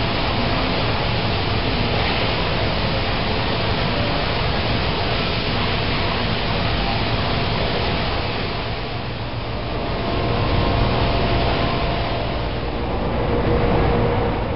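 Steady rushing noise with a faint underlying hum, fairly loud and even throughout.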